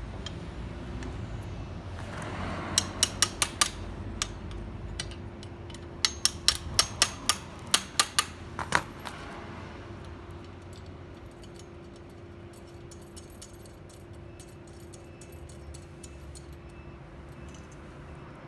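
Sharp metallic clicks from a high-lift jack's mechanism being worked, in two quick runs of about five and then about eight clicks, several a second, over a faint steady hum.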